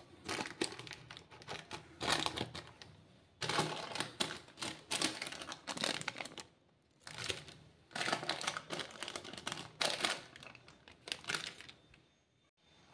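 Butter paper (baking parchment) crinkling and crackling as it is peeled away from the sides of a baked cake in its tin, in four bursts with short pauses, falling quiet near the end.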